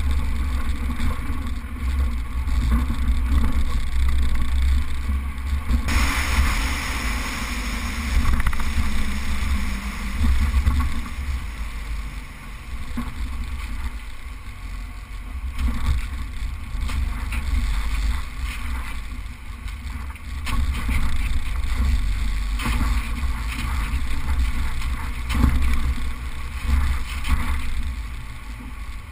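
Suzuki four-wheel drive driving on sand, a steady low engine and road rumble with wind buffeting the microphone. About six seconds in, a louder hiss abruptly joins it.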